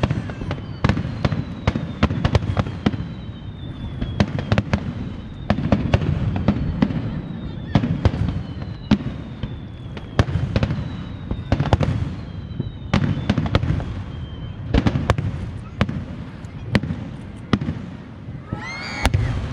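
Fireworks display: a rapid, irregular series of sharp bangs from bursting shells, with several long whistling tones that slowly fall in pitch, over a steady low murmur.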